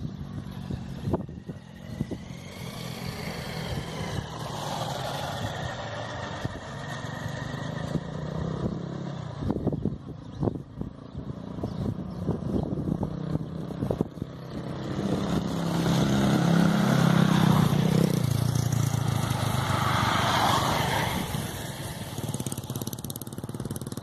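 Street traffic: motor vehicles running past, with one engine passing close and growing loudest a little past the middle.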